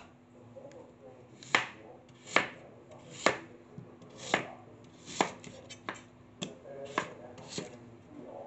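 Cleaver slicing through a raw red potato down onto a wooden cutting board: about nine sharp knocks, roughly one a second, coming a little quicker toward the end.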